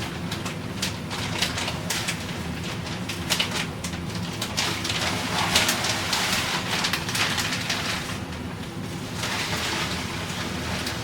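Fluorite Red clay gravel being poured and spread as an aquarium substrate layer: an uneven hiss of many small grains clicking and rattling, heavier near the middle.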